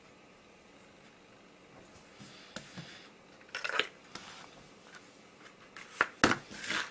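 Hands handling a straight razor and its small cardboard box: a few light clicks, taps and rustles starting about two seconds in, with the sharpest taps near the end.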